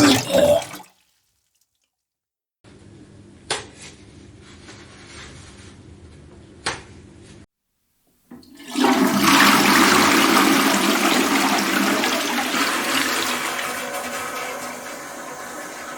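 A toilet flushing: a loud rush of water starts about eight seconds in and slowly fades. Before it come two sharp clicks over a faint steady background. At the very start there is the brief pitched tail of a bodily noise.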